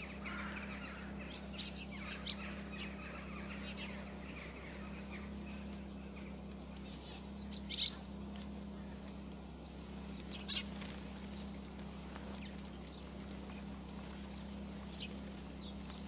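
Short, sharp bird chirps a few seconds apart, the loudest a double chirp about eight seconds in, over a steady low hum.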